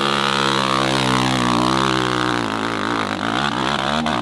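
Dirt bike engine at high revs as the bike charges up a steep hill climb. The revs hold steady at first, then rise and fall unevenly in the second half as the bike bounces up the rough slope.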